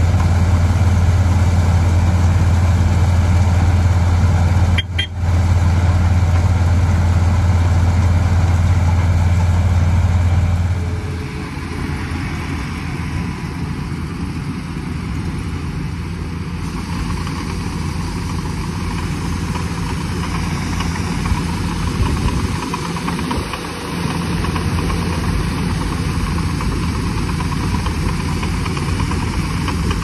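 Diesel engines of farm tractors and a combine harvester idling steadily with a strong low hum. About eleven seconds in the sound changes to a combine harvester running steadily as its unloading auger pours wheat into a trailer.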